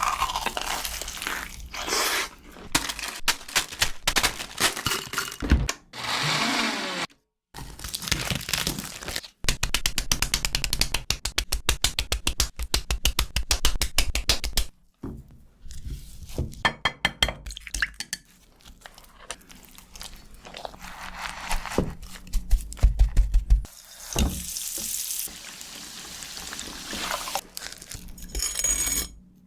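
Food-preparation sounds for a Cheetos grilled cheese, cut together in short clips: crisp crunching and crinkling of Cheetos, a long run of fast, even strikes such as the snack being crushed or chopped, and a few stretches of steady hiss.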